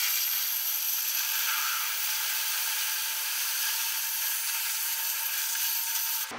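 Oxy-fuel cutting torch cutting through steel frame plate with a steady hiss, traced around an existing hole to enlarge it.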